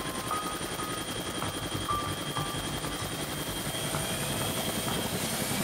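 Steady helicopter engine and rotor noise: a continuous high whine over a fast, even rotor flutter.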